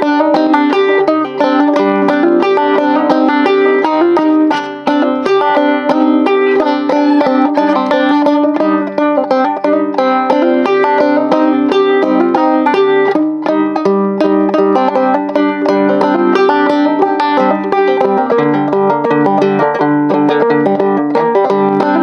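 Banjo picking a continuous stream of notes in the Hijaz mode, in sawmill tuning.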